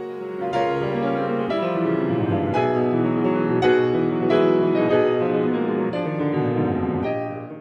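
Slow piano music, a new chord struck about every second, fading out near the end.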